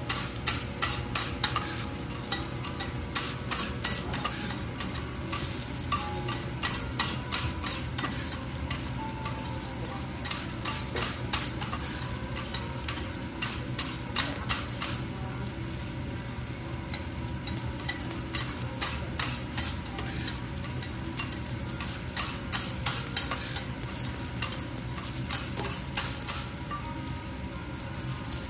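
Steel teppanyaki spatulas clacking and scraping on the hot steel griddle as they chop and turn garlic slices frying in fat, with a steady sizzle underneath. The sharp spatula clicks come in quick irregular runs.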